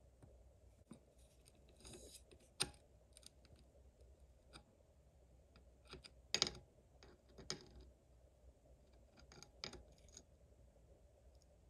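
Faint, scattered metal clicks and short light scrapes of a round chainsaw file and a saw chain being handled on the bar, with a few sharper taps among them.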